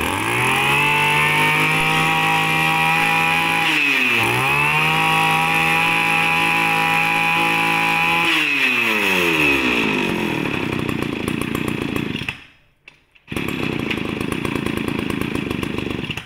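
Zenoah Komatsu G3K brush cutter's 33cc two-stroke engine revved to high speed, with a brief dip and recovery about four seconds in. The throttle is let off about eight seconds in and the engine winds down. The sound drops out for about a second near twelve seconds, then a steady running sound returns.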